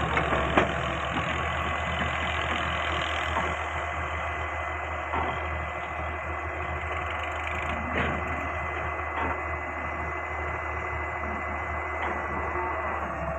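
Diesel engine of a Caterpillar 385C hydraulic excavator running steadily, with a thin steady whine above it and a few sharp knocks about half a second in.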